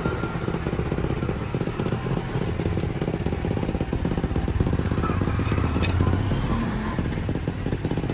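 Small engines of passing road traffic, motorbikes and three-wheelers, running with a fast low pulsing that swells about two-thirds of the way through; a single sharp knock is heard just before that.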